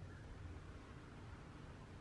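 Near silence: room tone with a faint steady low hum and hiss.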